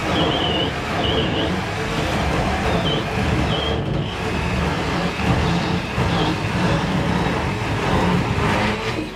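Engine of a portable band sawmill running steadily under load as the blade cuts through a large log; the sound cuts off abruptly at the end.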